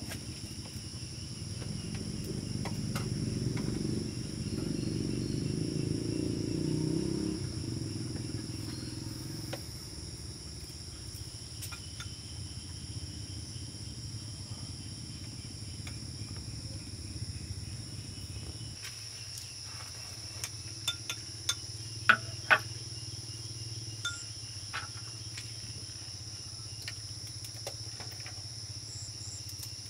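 Crickets chirping in a steady high chorus, over a low rumbling noise that is louder in the first ten seconds. A few sharp knocks come between about twenty and twenty-three seconds in.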